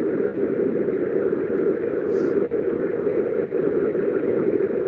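Steady rushing background noise, with two faint clicks about two and a half and three and a half seconds in.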